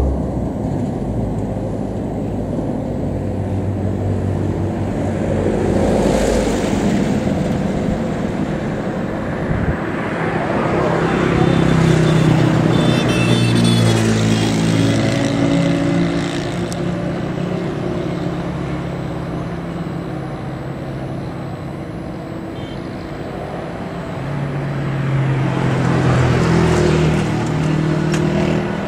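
EMD diesel-electric locomotive hauling a passenger express, its diesel engine running as it approaches. Road vehicles pass close by, swelling loud about twelve seconds in and again near the end.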